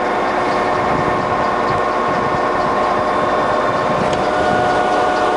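Colchester Triumph 2000 centre lathe running at 80 RPM with its lead screw engaged. The headstock and feed gearing make a steady whine of several even tones.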